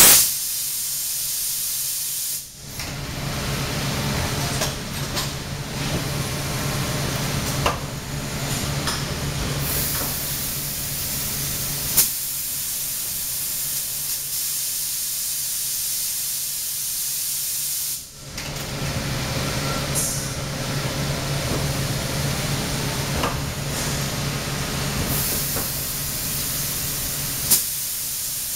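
Kautex KEB 200 continuous extrusion blow molder running: a steady hiss over a low hum. The hiss briefly drops away and then returns twice, about fifteen seconds apart, and a sharp click comes twice on the same spacing, suggesting a repeating machine cycle.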